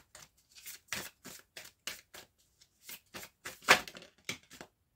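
A deck of oracle cards shuffled by hand: a quick run of card slaps and riffles, about four a second, with one louder slap near the end before the shuffling stops.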